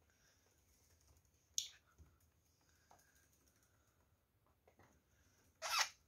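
Faint taps and clicks on a wooden desk top as a budgerigar walks across it and a hand moves on the desk, with a sharp click about a second and a half in and a louder, slightly longer one near the end.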